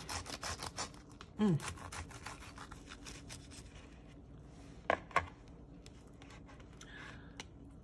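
Knife cutting through a crisp, pan-charred tortilla wrap: a quick run of crunchy crackles, then softer crinkling and scratching as the wrap is worked apart. Two sharp clicks come about five seconds in.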